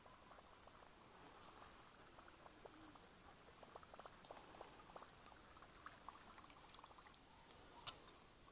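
Near silence: a faint, steady high hiss with scattered soft ticks through the middle and one sharper click near the end.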